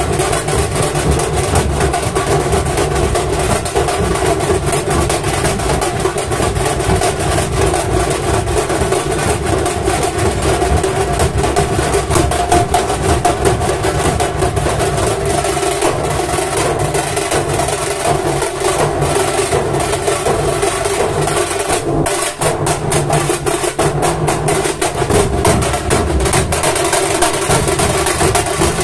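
Maharashtrian dhol-tasha troupe playing: massed dhol drums beating a dense, unbroken rhythm.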